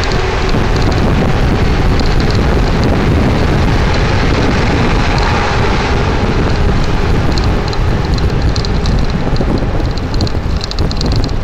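Wind buffeting the microphone of a camera carried on a moving bicycle, a loud steady rumble, with a patter of small rattles from about halfway through as the bike rolls over brick paving.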